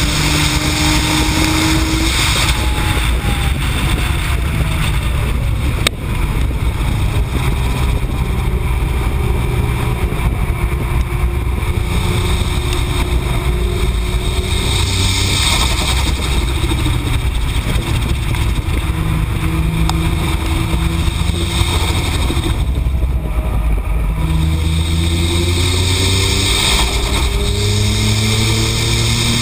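Tuned Nissan GT-R's twin-turbo V6 (AAM 800+ package on its low boost setting) running hard on track. Its pitch falls as the car slows a few seconds in, holds and wavers through the middle, and rises again near the end as it accelerates. Steady wind and road noise run under it.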